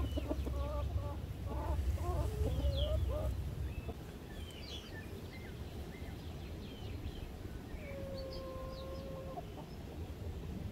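Domestic chickens clucking in short, pitch-bending calls, with a low rumble under the first few seconds, small high chirps in the middle and one long, steady drawn-out call about eight seconds in.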